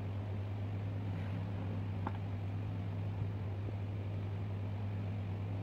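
A steady low hum over an even hiss of background noise, with a couple of faint small clicks about two and three seconds in.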